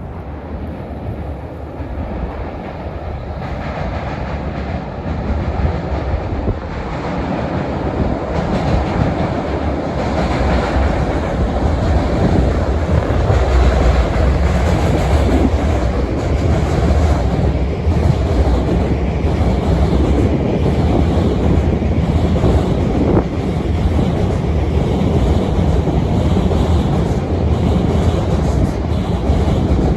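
A long freight train passing on the rails, its wheels clattering over rail joints above a steady low rumble. It grows louder over the first ten seconds or so and stays loud.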